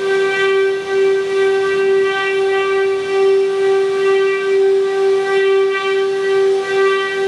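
The spindles of a 12-head, 4-axis woodworking CNC router running together, giving one steady high whine with a slow, regular swell in loudness.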